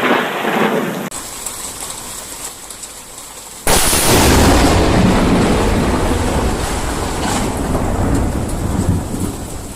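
Thunderstorm: steady rain hiss, then over a third of the way in a sudden, loud thunderclap that rolls on as a long, heavy rumble.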